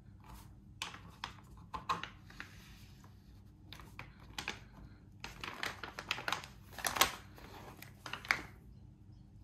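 Plastic Boveda humidor bag being handled and unzipped: a run of crinkles, rustles and sharp clicks from the plastic and its zipper slider, with the loudest clicks about two, seven and eight seconds in.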